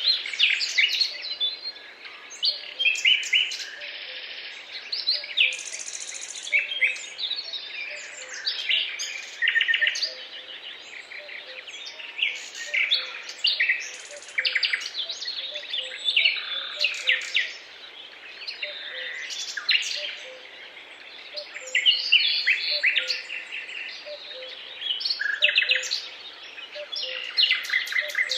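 Many songbirds singing at once, with dense overlapping chirps, trills and short calls over a faint steady background hiss.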